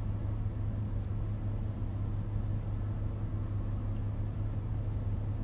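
Steady low hum of a car heard from inside the cabin.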